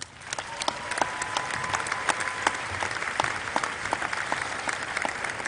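Audience applauding, starting up and building within about a second to steady clapping.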